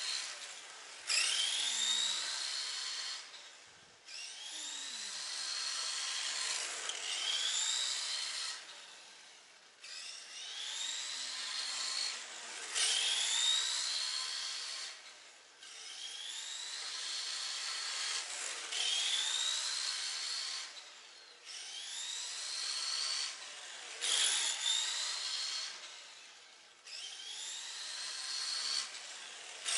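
Tamiya TT-01 radio-controlled car's brushed Light-Tune electric motor and drivetrain whining, the pitch rising as the car speeds up, then dropping away briefly before the next run. This happens about every five or six seconds, over and over.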